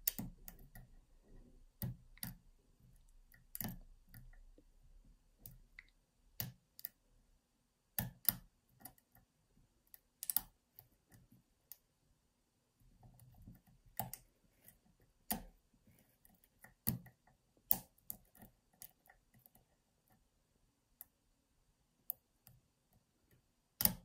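Lock pick working inside a Ruko rim cylinder lock: faint, irregular small metallic clicks and ticks spread out over the whole stretch, with a sharper click near the end as the lock picks open.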